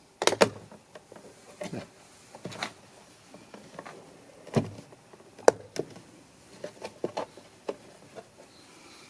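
Irregular plastic clicks and knocks from a car door mirror's glass and housing being handled and pushed onto its retaining clips.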